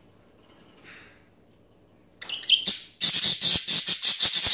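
Budgerigar chattering in a fast run of sharp chirps and squawks that starts about two seconds in, after a near-quiet start.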